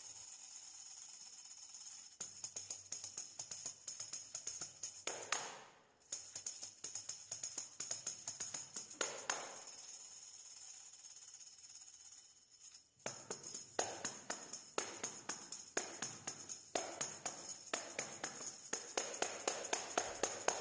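Hand tambourine played solo in a quick, steady rhythm of jingles, with two brief stops, about six and thirteen seconds in.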